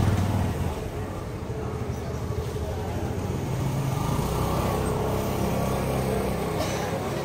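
Street traffic: a motor vehicle's engine running close by, a low hum that grows louder about four seconds in and eases near the end.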